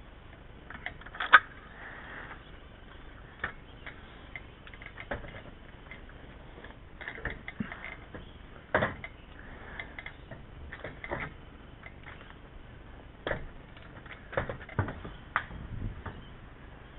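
Scattered sharp clicks and knocks at uneven intervals, the loudest about a second in.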